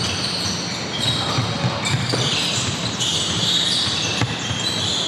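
Basketball game on an indoor court: the ball bouncing amid the steady noise of play, with a few sharp knocks and short high squeaks.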